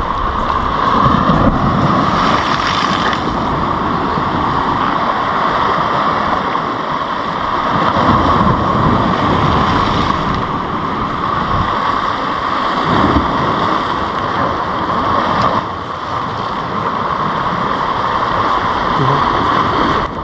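Wind noise on the microphone over the wash of sea waves: a steady hiss with low gusts that swell and fade several times.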